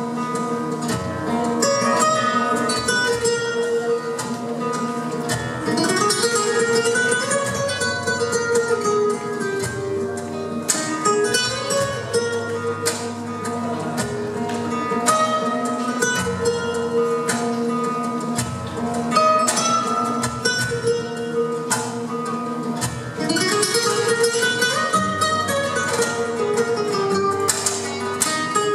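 Flamenco guitar played live: a fast, continuous plucked passage of melody and chords.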